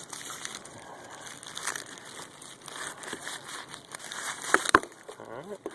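Plastic packaging crinkling as a shrink-wrapped roll of ball bearings is unwrapped by hand, with two sharp clicks near the end.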